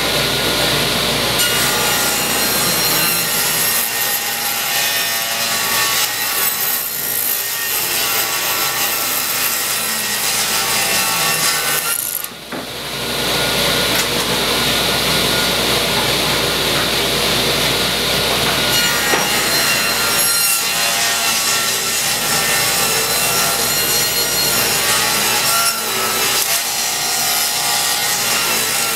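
Table saw ripping birch boards lengthwise, the blade cutting through wood continuously with a short lull about twelve seconds in as one board clears and the next is fed.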